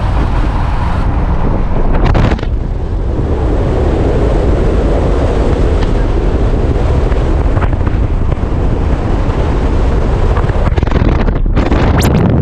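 Loud, steady rushing noise with wind buffeting the microphone.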